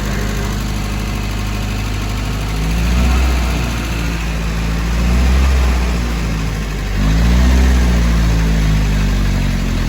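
Restored Jeep's engine running at idle, then revving up and easing back three times, about three, five and a half and seven seconds in, as it is driven under power.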